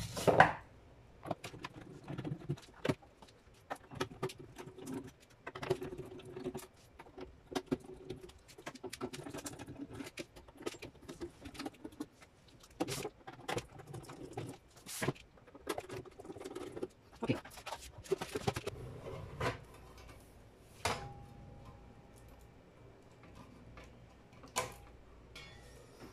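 Hands handling a sheet-metal inverter casing and its loose screws: a long run of separate clicks, knocks and metallic clinks with stretches of sliding and rubbing between them. One knock about 21 seconds in leaves a short ringing tone.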